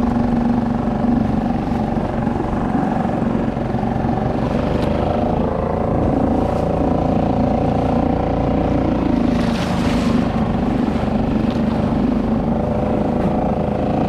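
A small marine engine running steadily at a nearly constant pitch, with water and wind rushing past. There is a brief louder rush of noise about ten seconds in.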